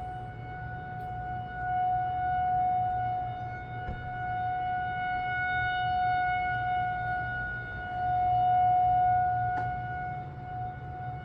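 Federal Signal 2001-230 rotating outdoor warning siren sounding its steady alert tone. The pitch holds level while the loudness swells and fades about every three seconds as the siren head turns.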